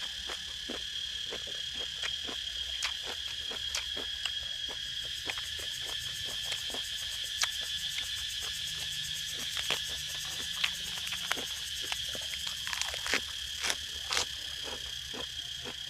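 Steady high-pitched chorus of insects such as crickets, overlaid by close, irregular crisp clicks and crunches of someone chewing crunchy food, with a few louder crunches near the end.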